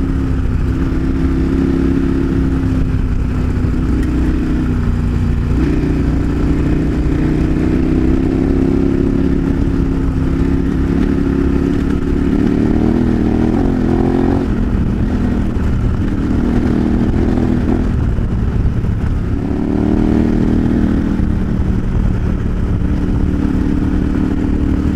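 KTM 1090 Adventure R's V-twin engine running under way as the motorcycle is ridden along a dirt road, its pitch rising and falling with throttle changes over a steady low rumble.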